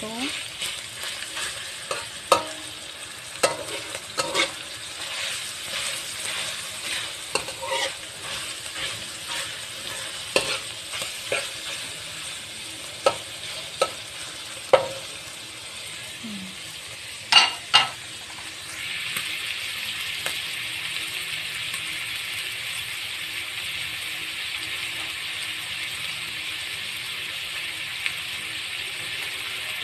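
Crumbled garlic longganisa sizzling in a metal wok as it renders its fat, while a metal spatula stirs and scrapes, clicking against the pan. About 17 seconds in come two sharp knocks; then the stirring stops and the sizzle goes on steadily, a little louder.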